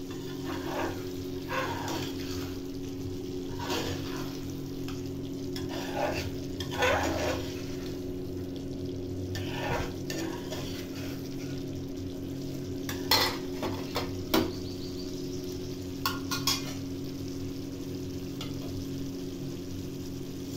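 A spoon and spatula stirring a thick, simmering egg masala gravy in a metal pan, with scraping strokes and a soft sizzle. About two-thirds of the way through come a few sharp metallic clicks, over a steady low hum.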